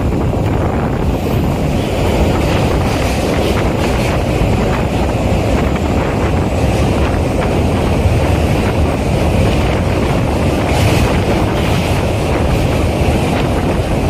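Steady running noise of a moving train heard from an open door while crossing a steel truss bridge, with wind buffeting the microphone.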